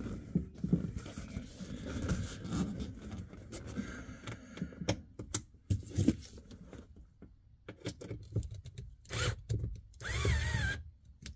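Rubber rear seat back mat being worked into place by hand: irregular rubbing, scraping and soft knocks as it is pushed and tucked. A short hiss about ten seconds in.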